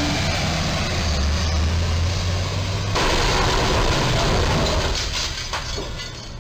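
Box truck engine running as it approaches, then about three seconds in a sudden loud crash and scraping as the top of the truck's box strikes the steel crash beam in front of the low rail bridge, tearing the roof. The crash noise fades near the end.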